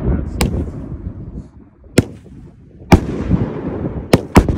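A 'Don't Tread On Me' 16-shot colour-salute firework cake firing, its shells bursting in five sharp bangs at uneven intervals, the last two in quick succession near the end. Each bang is followed by a rolling echo.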